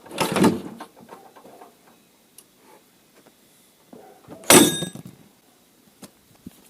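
Kick-starting the 127 cc pit-bike engine: a rough cranking burst at the start dies away, followed by light knocks. About four and a half seconds in comes one loud metallic clank with a short ringing, as the kickstarter breaks.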